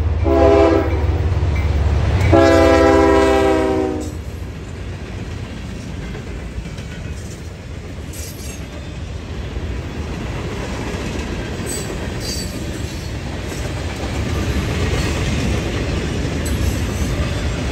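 CSX diesel freight locomotive sounding its multi-note air horn: a short blast about half a second in, then a longer blast of about a second and a half starting two seconds in, over the engine's low rumble. After that the freight cars roll past with a steady rumble and occasional clicks of wheels over rail joints.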